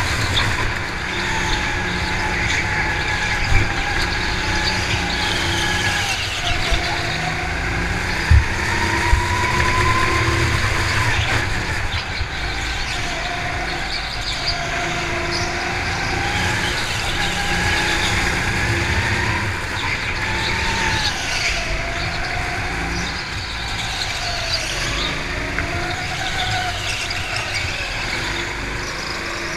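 Go-kart engine heard from on board the kart, its pitch rising and falling every few seconds as the throttle is opened and eased through the corners.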